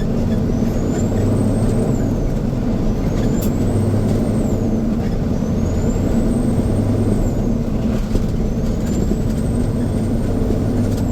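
Diesel engine of a Freightliner semi truck loaded with wheat, heard from inside the cab while accelerating through the gears. A steady low drone, with a high whistle that rises and then falls about every two and a half seconds as it shifts up.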